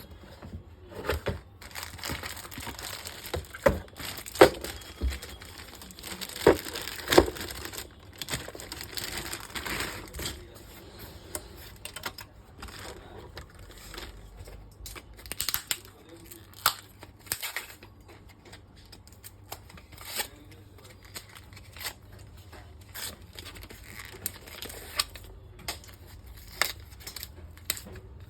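Computer parts and their packaging being handled: a crinkling rustle with scattered sharp clicks and knocks, busiest in the first ten seconds.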